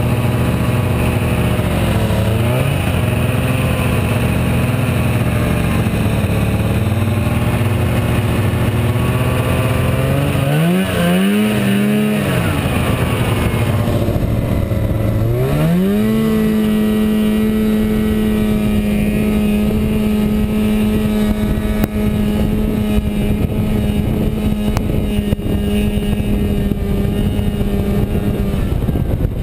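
Arctic Cat Jag 440 Deluxe snowmobile's two-stroke engine running under way. It revs up and falls back around ten seconds in, then opens up about fifteen seconds in and holds a steady higher-pitched cruise until it eases off near the end.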